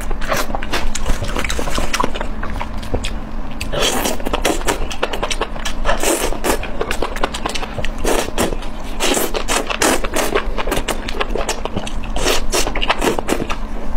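Close-miked eating sounds: a person chewing and slurping skewered food in sauce, with dense, irregular wet smacks and clicks.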